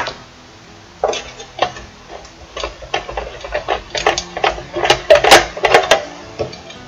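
Irregular clicks and knocks of handling as the photo-rifle's metal stock and its leather strap are worked loose from the fitted aluminium carrying case, knocking against the case. The knocks come thickest about four to six seconds in.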